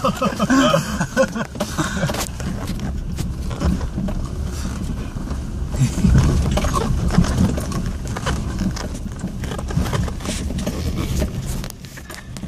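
Inside the cabin of a 4x4 driving along a rutted dirt track: a steady low rumble from the engine and tyres, with frequent knocks and rattles as the vehicle bounces over the ruts.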